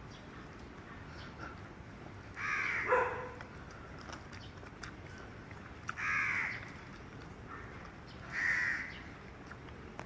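Crows cawing: three harsh calls a few seconds apart, the first of them doubled.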